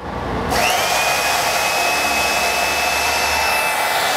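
Hydraulic pump of a 115-ton swage press starting up and running steadily under load as it drives the press to compress a coupler. A whine rises about half a second in, then holds level over a steady motor noise.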